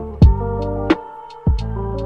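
Background music: deep bass and held chords with a sharp beat about every two-thirds of a second.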